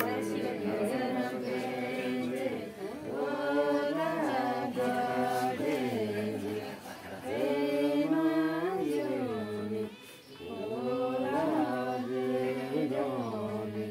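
Unaccompanied voices singing a Sherpa wedding song in long, drawn-out, chant-like phrases, with short pauses between phrases about seven and ten seconds in.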